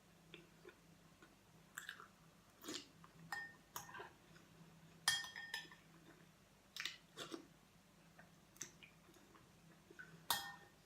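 Mukbang eating sounds: soft chewing and mouth noises, with a dozen or so scattered clicks and a few ringing clinks of utensils against a dish. The sharpest clinks come about five seconds in and near the end.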